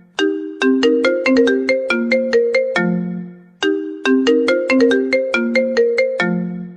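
Mobile phone ringtone: a short melody of quick, sharp-edged notes that ends on a longer low note. It plays twice, with a brief break about halfway through.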